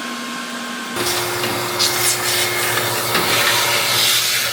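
A vacuum running with a steady hum and hiss, changing abruptly about a second in to a louder, lower hum with rubbing and scraping over it as it works a surface for dust.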